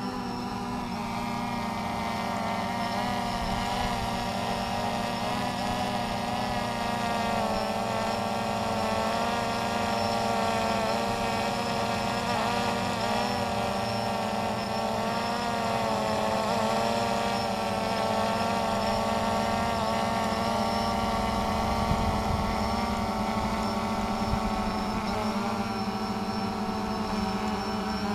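DJI Phantom 3 Standard quadcopter's motors and propellers whining steadily as it hovers, the pitch wavering slightly as the motors adjust.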